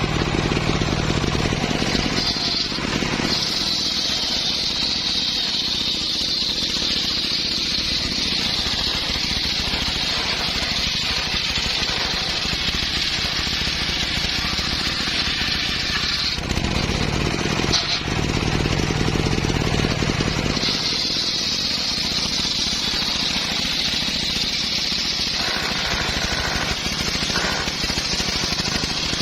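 Engine-driven homemade circular saw rig running and ripping small timber in two long cuts. Each cut brings a high blade whine over the engine, and between the cuts the engine runs on its own for a few seconds.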